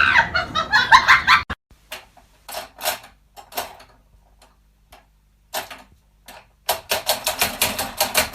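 Excited voices or laughter cut off abruptly; then scattered sharp taps and clicks, quickening near the end into a rapid run of taps like typing.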